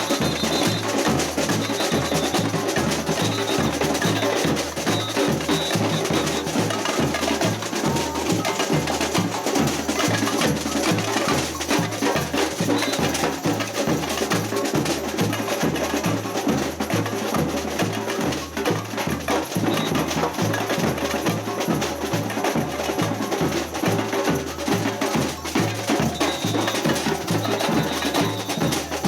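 Samba percussion ensemble (batucada) playing a steady groove: deep, evenly repeating bass drum beats under busy, bright clicking and rattling of smaller hand percussion.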